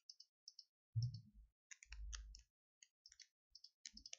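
Faint clicking of a computer keyboard as the left arrow key is tapped over and over, with a couple of soft low thumps about one and two seconds in.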